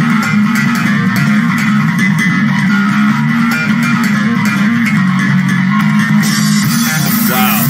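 Live rock performance: an electric bass guitar playing a loud, driving riff over drums.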